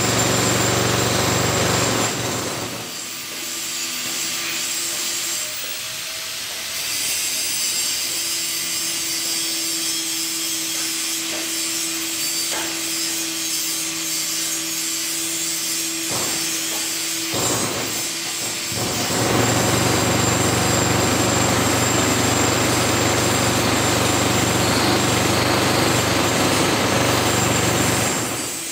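Electric angle grinder cutting through steel rod, a continuous grinding whine whose tone shifts as the disc bites and eases, fuller and heavier in the later part.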